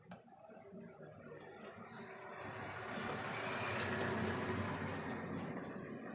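A passing vehicle: a rushing noise that builds, peaks about four seconds in, then fades away.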